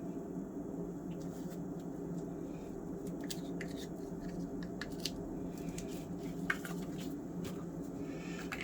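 Light clicks and taps of paint bottles and a cup being handled during acrylic pouring, scattered through the second half, over a steady low hum.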